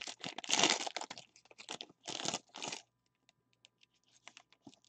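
Gold foil trading-card pack being torn open and crumpled: a run of crinkling, crackling bursts over the first three seconds, then only a few faint ticks.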